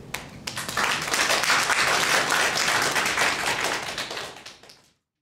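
Audience applauding: a few scattered claps that swell within about a second into full applause, then fade and cut off abruptly near the end.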